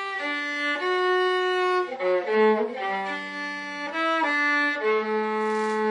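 Viola playing a melody of bowed notes, the pitch changing every half second to a second, with a longer note held near the end.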